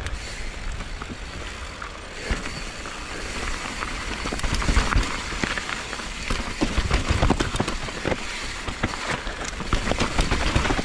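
Mountain bike riding down a rough dirt trail: a steady rush of tyre and trail noise, with frequent clattering knocks from the bike over roots and rocks that come thicker a few seconds in and again near the end.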